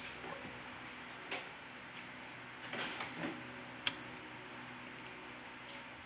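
A few light clicks and taps of small tools and smartphone parts being handled and fitted during reassembly, with a sharper click about four seconds in, over a steady low hum.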